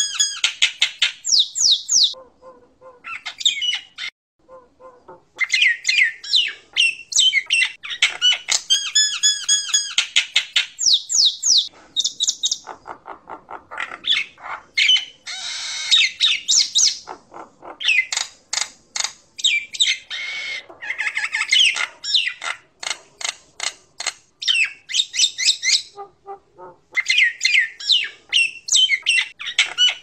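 Common myna (jalak nias) singing a long, varied run of harsh squawks, rapid rattling chatter and whistled notes, with short pauses about two seconds in and again near the end.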